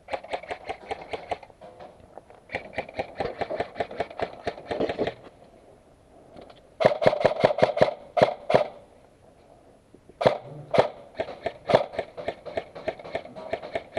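Airsoft rifle firing in four bursts of rapid shots, each burst lasting one to three seconds, with short pauses between them.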